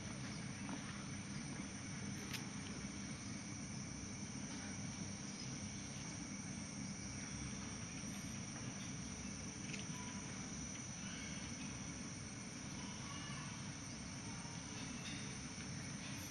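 Tropical rainforest insects droning in a steady, unbroken high-pitched hum, over a low rumble.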